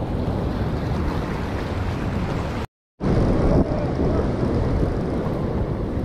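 Sea surf washing and breaking over a rock shelf, under steady wind buffeting the microphone. The sound cuts out completely for a moment about halfway through.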